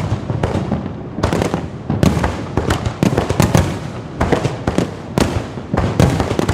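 Low-altitude fireworks display going off, a rapid run of sharp bangs and cracks, several a second, coming in clusters.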